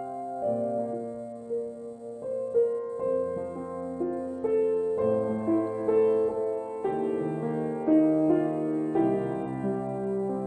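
Slow, gentle instrumental piano music: single notes and chords struck every half second to two seconds over held low bass notes.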